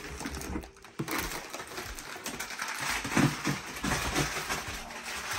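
Plastic food packets crinkling and rustling as they are handled and dropped into a cardboard box, with light knocks against the cardboard and a louder cluster of knocks a little past halfway.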